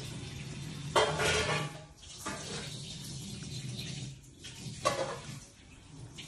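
Metal spoon clinking and scraping on a ceramic plate, once about a second in and again near five seconds, over a steady low background hum.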